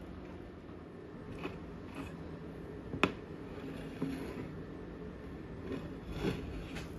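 A low steady hum with a few faint clicks and knocks of handling, the sharpest a single click about three seconds in.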